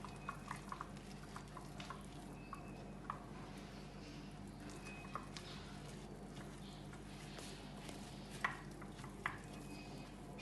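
Spoon stirring a thick cake batter in a bowl, with faint irregular clicks of the spoon against the bowl and two louder knocks near the end.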